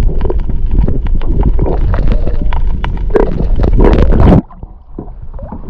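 Muffled underwater rumble and sloshing of seawater against a submerged action camera, with scattered clicks. It drops away suddenly about four seconds in as the camera comes up toward the surface.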